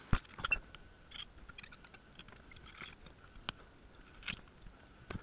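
Faint, scattered small clicks and scrapes from tools and the opened smart plug's circuit board being handled on the bench.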